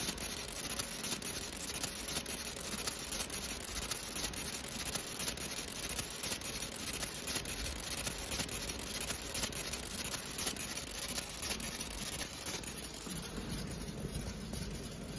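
Fiber laser marking machine cutting through 0.15 mm stainless steel sheet: a steady, fast crackling hiss as the pulsed beam ablates the metal.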